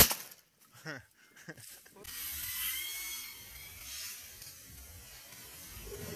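A single shotgun shot at a flight of teal over decoys, sharp and loud at the very start, followed by about two seconds of quiet with a couple of faint knocks, then a steady hiss.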